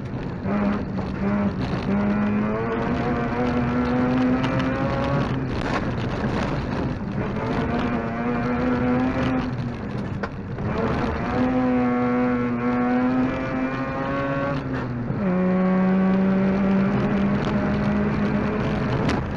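Mazda RX2 rally car's rotary engine driven hard, heard from inside the cabin. Its pitch climbs under full throttle and breaks several times with gear changes and lifts, about five, ten and fifteen seconds in.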